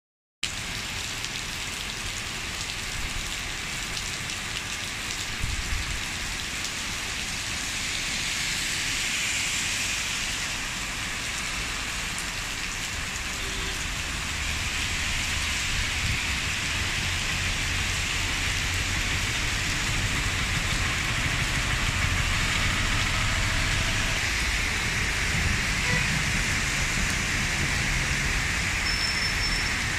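Heavy monsoon rain pouring onto roads and pavement, a dense, steady hiss, with an uneven low rumble underneath.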